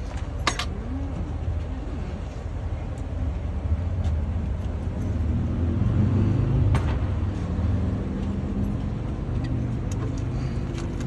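A vehicle engine running close by with a steady low rumble. A few sharp clinks of metal utensils come through, one just after the start and another about seven seconds in.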